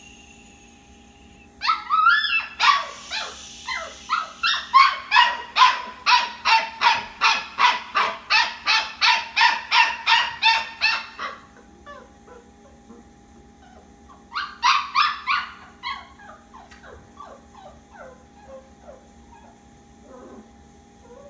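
Labradoodle puppy yipping and crying in a fast run of high-pitched yelps, about three a second, for roughly ten seconds. A shorter burst follows a few seconds later and trails off into fainter whimpers as the puppy begins to hush down in its crate.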